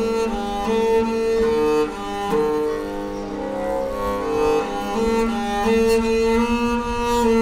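Cello being bowed, playing a slow melody of held notes that change about every half second to a second, often with two notes sounding at once.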